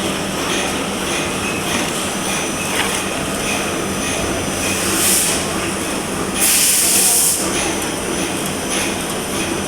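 Power band saw machine running with a steady mechanical noise and a faint hum, broken by two short hissing bursts about five and seven seconds in.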